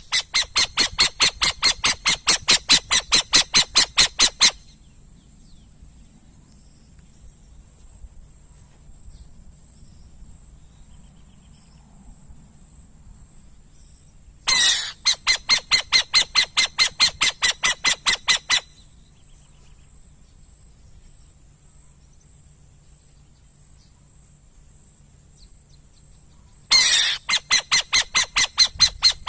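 Owl calling in bouts of rapid, harsh pulsed notes, about five or six a second: a four-second bout at the start, another about fifteen seconds in, and a third near the end.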